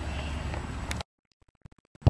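Outdoor field ambience, a steady low rumble and hiss, that cuts off abruptly to near silence about halfway through, leaving only a few faint clicks.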